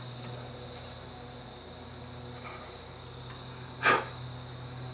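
A single short, sharp click about four seconds in, from the ABS sensor wire being pressed into its plastic holder clips on the front suspension. Under it, a steady high-pitched whine and a low hum.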